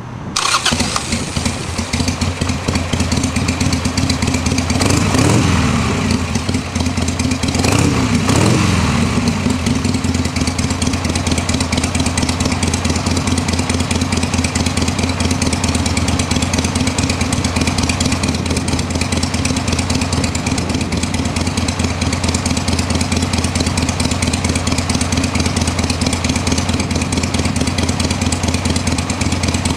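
2001 Harley-Davidson Sportster 883's air-cooled V-twin engine. It fires up right at the start and is revved twice, about five and eight seconds in, then settles into a steady idle.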